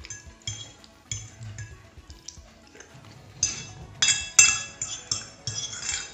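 Metal fork clinking and scraping against a ceramic plate, a string of ringing clinks that grows busier and louder from about three and a half seconds in, with the sharpest strike just after four seconds.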